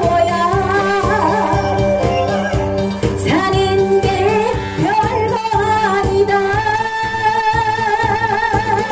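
A woman sings a Korean song into a microphone over a karaoke backing track with a steady beat. In the second half she holds one long note with vibrato.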